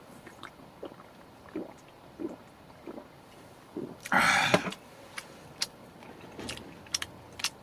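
A person drinking right after a toast: five soft gulps spaced about two-thirds of a second apart. They are followed, about four seconds in, by a short loud breathy burst. Light clicks of tableware come near the end.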